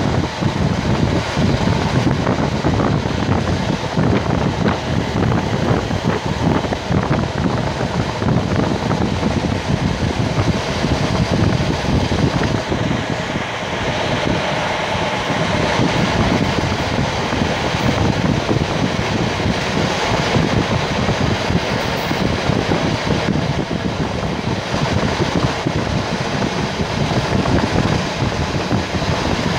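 Passenger train hauled by an Alco RSD-39 diesel locomotive running at speed, heard from on board: a steady, even rolling noise of the train on the track.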